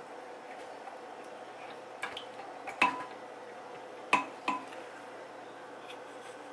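A long-handled dish brush scrubbing inside a blender jar partly filled with water, with a few sharp knocks of the brush against the jar, the loudest about three and four seconds in. A steady low hum runs underneath.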